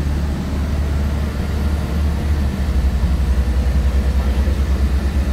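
Apron bus's engine and drive noise heard inside the cabin: a steady low rumble that turns into a fast, even pulsing about halfway through.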